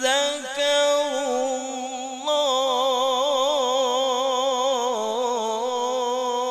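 A man's voice reciting the Qur'an in melodic tilawah style, drawing out a phrase in ornamented runs. After a short break about two seconds in, he holds one long note with rapid wavering turns of pitch.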